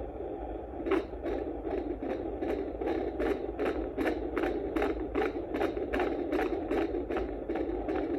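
A Neeva Baby fetal Doppler's speaker plays a fetus's heartbeat as rapid, even whooshing pulses over a steady hiss, about two and a half beats a second. That is a normal fetal heart rate of around 150 a minute. The beats come in about a second in, once the probe settles on the baby.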